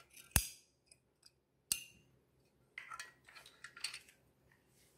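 Screws and bolts clinking in a stainless steel tray as they are handled: two sharp clinks in the first two seconds, then a run of lighter clinks and rattles.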